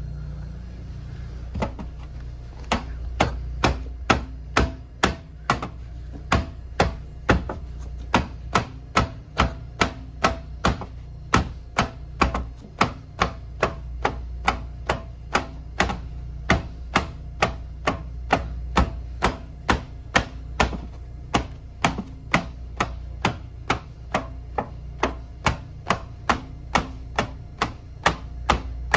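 Instep kicks (haisoku geri) landing on a hard wrapped target in a conditioning drill: sharp smacks at a steady pace of about two a second, starting sparsely and settling into an even rhythm after a few seconds. A steady low hum runs underneath.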